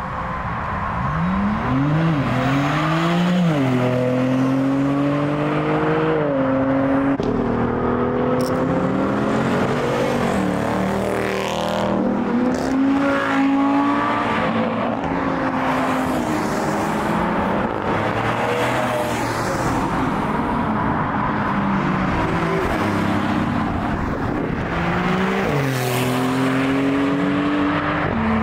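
Cars accelerating hard past one after another, engines revving up through the gears, with the pitch dropping at each shift.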